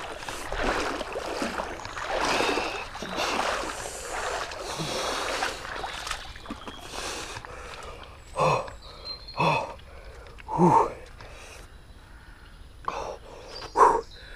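Legs wading and splashing through a cold, knee-deep stream for the first half. After that, a man gives several short, sharp gasps and breaths from the freezing water.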